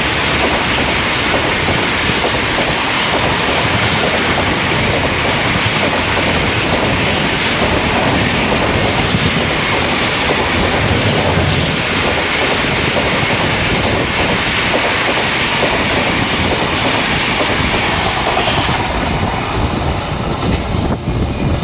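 Mandor Superfast Express passing close at speed, a steady loud rush of wheels clattering over the rail joints. The noise thins out slightly near the end.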